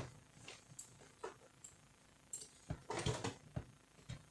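Metal parts of a Canon iR2016 copier's fuser unit clicking and clattering as they are handled and fitted together: a sharp click at the very start, then scattered light knocks, busiest about three seconds in.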